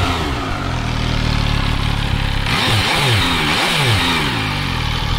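MV Agusta Dragster 800 Rosso's three-cylinder engine idling in neutral, then revved in a quick series of short throttle blips about halfway through before settling back to idle.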